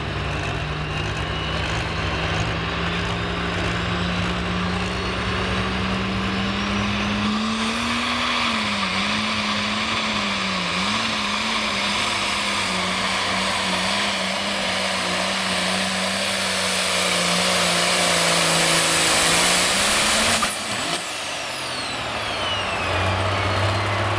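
Turbine-engined pulling tractor making a pull: a high whine climbs over the first several seconds as the turbines spool up, the sound grows louder toward the end of the run, then cuts off sharply about twenty seconds in and the whine falls away as the turbines wind down. A steady low engine hum runs underneath.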